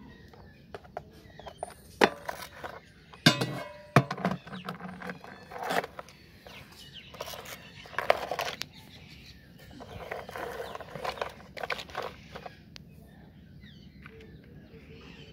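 Plastic toy vehicles and a cardboard box being handled and set down, with a string of sharp clacks and knocks, the loudest a few seconds in.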